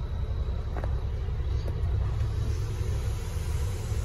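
DAF XF460's 12.9-litre PACCAR MX-13 straight-six diesel idling steadily, a low rumble heard from inside the cab. A couple of faint clicks come through about a second in and near the middle.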